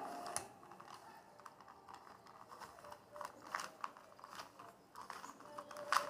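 Plastic 2x2 Rubik's cube being turned by hand, its layers clicking and clacking irregularly as they snap round.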